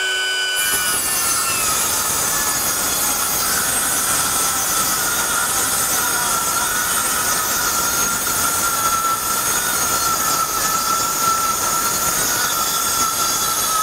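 Milwaukee M18 FUEL 6-1/2-inch brushless cordless circular saw, on a 5-amp-hour battery, making one long continuous cut through two stacked half-inch sheets of OSB: a steady high whine over the rasp of the blade in the wood.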